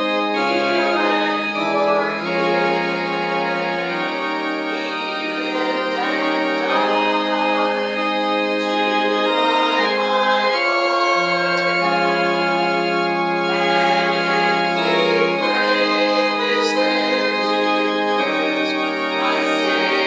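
Church organ playing a slow hymn tune in long, sustained chords that change every few seconds.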